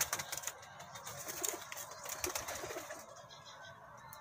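Domestic pigeons cooing, short low coos scattered through the loft, with a few light clicks near the start.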